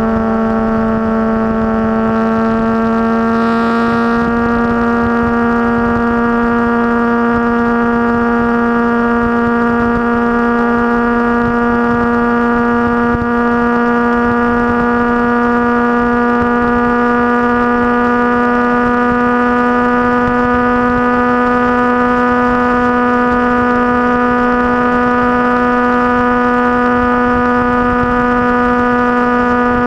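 Motorcycle engine running at a steady speed while riding, a constant droning note whose pitch rises slightly about three seconds in and then holds level.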